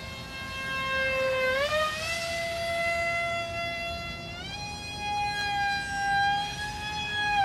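Motor and propeller of a scratch-built SB16 foam RC airplane in flight, a steady high whine that steps up in pitch about a second and a half in and again a few seconds later, then starts to drop near the end.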